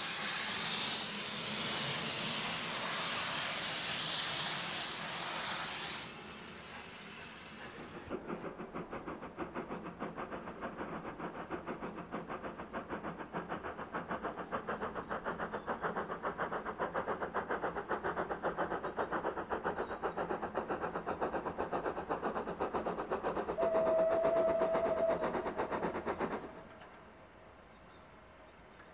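Steam locomotive: a loud hiss of escaping steam, then from about eight seconds a fast, even rhythmic beat of the train running. A short steady whistle sounds near the end of the run, before the train sound drops away abruptly to a faint background.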